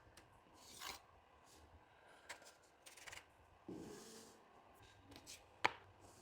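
Faint workshop handling sounds: light rubs, scrapes and small taps of wood pieces and tools being moved, with one sharp click about five and a half seconds in.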